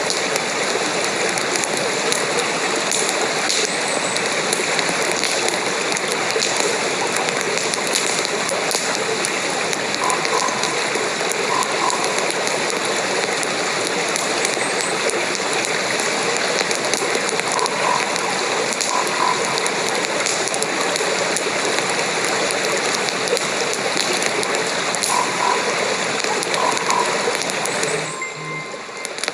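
Steady, dense rain patter. A faint, short two-note call is heard three times over it, and the sound drops and changes abruptly about a second before the end.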